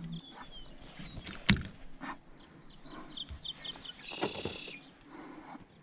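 Knocks and rustles of a bass being handled onto a measuring board on a kayak deck, the sharpest knock about one and a half seconds in. A bird calls with a quick run of short chirps past the middle.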